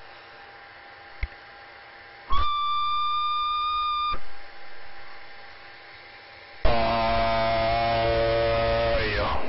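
CB radio receiver audio over a hiss and hum: a click, then a steady high beep for about two seconds, and later a station keying up with a louder, buzzy steady tone that bends down in pitch and drops out near the end.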